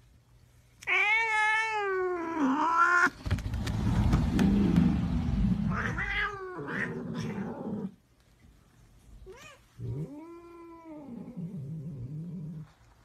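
Domestic cats tussling: a long wavering yowl, then a rough noisy stretch with another yowl, then a second long yowl.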